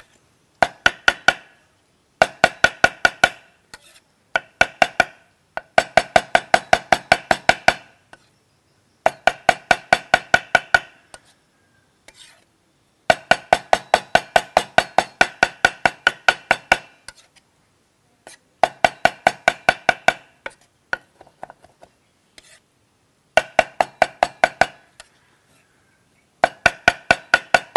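A knife mincing pork on a chopping board with rapid, even chops, about six a second, in runs of a few seconds broken by short pauses.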